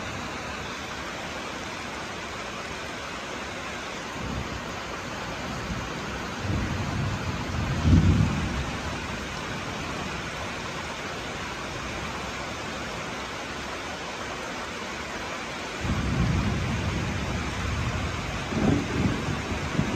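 Steady rain falling, with thunder rumbling twice: one roll builds to a peak about eight seconds in, and a second starts about sixteen seconds in and cracks sharper near the end.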